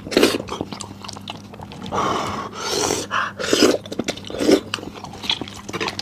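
Close-miked mouth sounds of a person eating beef trotter: wet chewing and smacking clicks, with several longer wet sucking noises in the middle.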